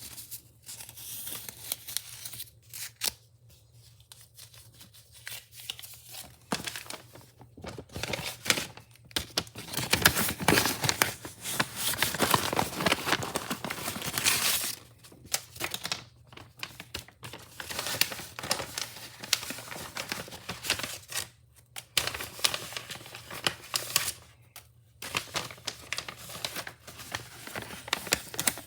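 Wrapping being torn open and crumpled by hand, in irregular bursts of ripping and crinkling with short pauses between. The longest, loudest stretch of tearing comes about a third of the way in.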